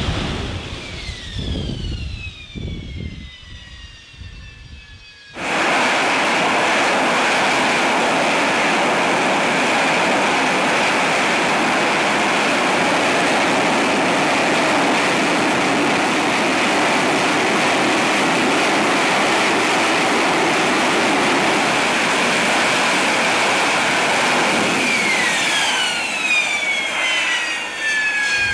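AV-8B Harrier's Rolls-Royce Pegasus jet engine. For the first five seconds its high whine falls in pitch, then the sound cuts suddenly to loud, steady jet noise. Near the end, high whining tones fall in pitch again.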